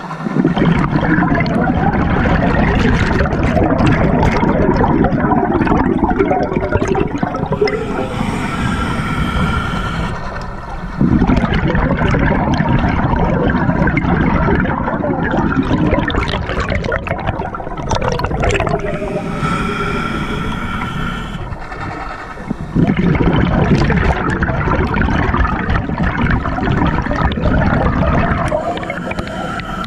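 Scuba regulator breathing heard underwater: three long rushes of exhaled bubbles, separated by short hissing pauses.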